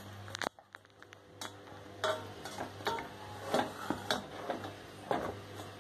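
A plastic spoon stirring and scooping beef strips and sauce in a stainless steel pot, giving irregular light clicks and knocks against the pot.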